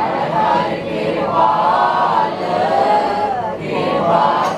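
Voices singing a Gurbani shabad in kirtan style, a melodic line held and bent in pitch without pause.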